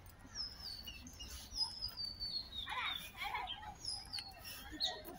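Songbird calling in park trees: a run of high, thin whistled notes sliding downward, then a short burst of busier chattering and one more high note near the end.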